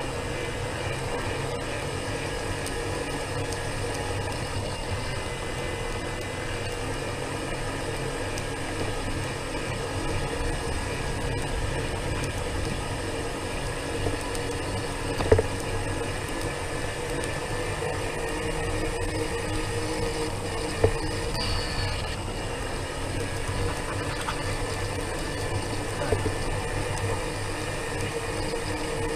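Red scooter running steadily along a paved path: a constant motor hum with tyre and road noise. A few sharp knocks cut through, the loudest about fifteen seconds in.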